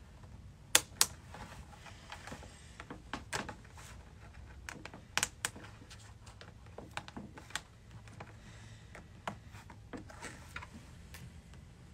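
Irregular sharp clicks and small snaps as pliers squeeze and work plastic retaining clips, folding them until they break.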